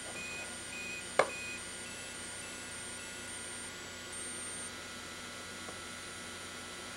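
Steady electrical hum and hiss of an old home-video recording, with faint high tones switching on and off. A single sharp click comes a little over a second in.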